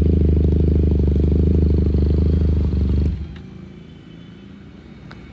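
QJ Motor SRK 400's parallel-twin engine idling steadily through its exhaust, then switched off about three seconds in, the engine sound cutting out abruptly and leaving faint background noise with a couple of small clicks.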